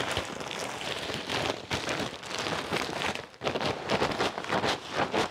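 Dry leaves rustling and crackling as they are shaken out of a woven plastic sack into a clear plastic bag, with irregular crackles throughout.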